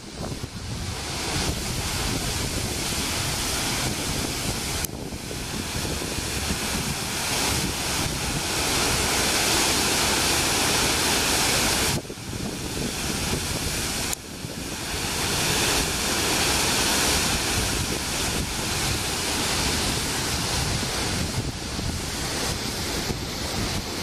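Steady rushing of Harajiri Falls, a wide waterfall pouring into its basin and the river below, heard as a dense, even roar of water. The level drops and jumps back abruptly a few times.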